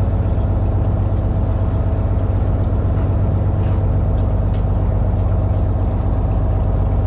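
Fishing boat's engine running with a steady low drone. A few faint ticks come in about four seconds in.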